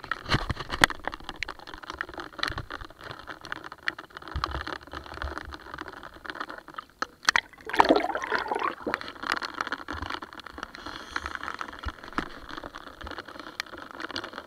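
Rain ticking and pattering on a kayak's deck and the camera, over the wash of lake water. About eight seconds in there is a louder rush and splash of water as the bow and camera dip into the lake.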